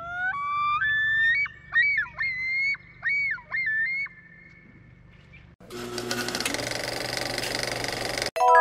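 Common loon call across the lake: a long pitched cry stepping upward, then repeated wavering, dipping phrases for about four seconds. Partway through, a loud shimmering whoosh from the intro takes over, and a bright ringing chime begins at the very end.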